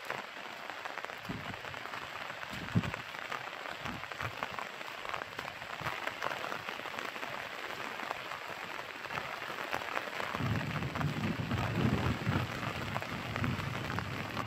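Rain falling steadily, a continuous hiss dotted with many small drop hits; a low rumble comes in about ten seconds in and grows toward the end.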